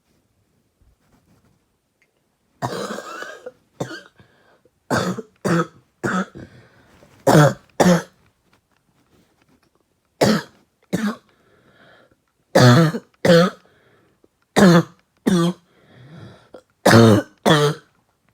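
A person's light coughing from inhaling bong smoke: one longer, rougher cough about two and a half seconds in, then a dozen or so short coughs, mostly in pairs, through the rest.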